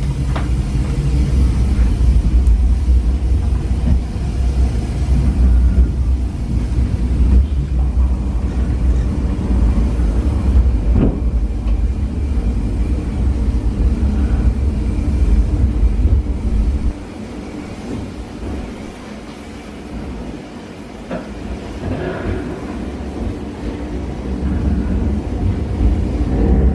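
Rhaetian Railway Bernina Express train running on its narrow-gauge track, heard from aboard: a steady low rumble of wheels and carriage with a few sharp clicks. The rumble drops off about two-thirds of the way through and slowly builds again near the end.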